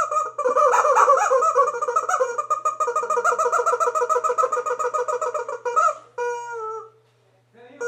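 Rubber chicken squeeze toy squawking: a long, fast-pulsing honk for about six seconds, then a few shorter squawks before it stops.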